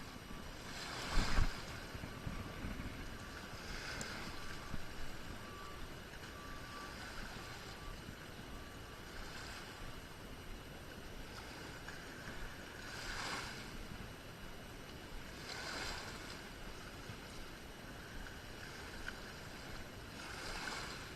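Waterside ambience: a steady wash of water and wind noise with a swell every few seconds, and a low thump about a second in. A faint, repeated beeping tone sounds through the first several seconds.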